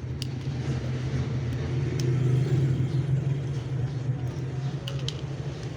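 A low rumble that swells to its loudest about two and a half seconds in and eases off, with a few light clicks.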